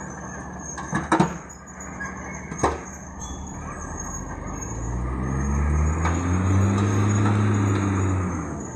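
A heavy diesel engine of construction machinery revs up about halfway through, holds, then eases off near the end. A few sharp clanks come in the first three seconds.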